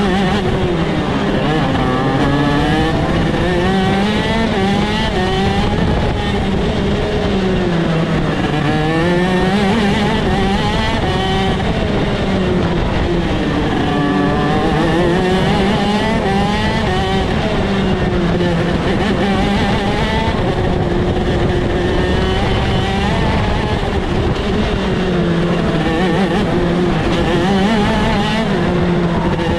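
Shifter kart's two-stroke engine at racing speed, heard from onboard, its pitch dropping into each turn and climbing back up along the straights, about every six seconds.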